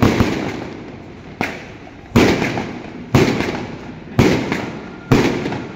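Fireworks going off one after another: six sharp bangs about a second apart, each trailing off slowly before the next.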